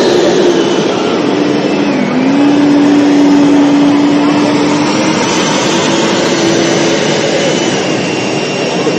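A loud, steady mechanical drone with a held hum that dips and recovers about two seconds in.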